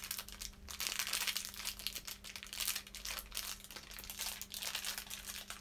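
A shiny plastic LOL Surprise blind bag crinkling and crackling as it is handled and pulled open by hand.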